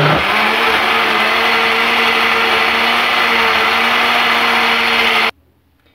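Electric blender motor running at a steady speed, churning a liquid chocolate cake batter of oil, milk, eggs and cocoa in its jug; it stops suddenly about five seconds in.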